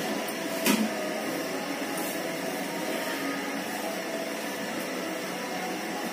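Steady hiss of a stove burner running under a pot of simmering milk vermicelli, with a single light knock about a second in.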